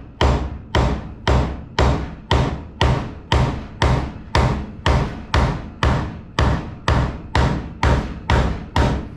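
Steady, evenly spaced thumps, about two a second, each with a sharp attack and a short ring-off.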